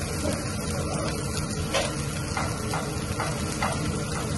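Onions frying in a pan with a steady sizzle. A handful of light utensil knocks come in quick succession from just under two seconds in.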